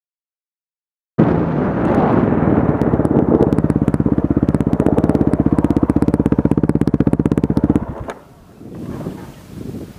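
Two-stroke dirt bike engine running after about a second of dead silence, settling into a rapid, even chugging beat, then cut off abruptly about eight seconds in, leaving only faint wind noise.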